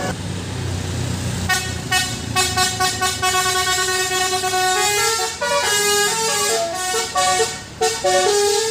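Bus engine running, then about a second and a half in a Basuri 'telolet' multi-trumpet bus horn starts playing a tune of quick stepped notes, several trumpets sounding together, with brief breaks between phrases.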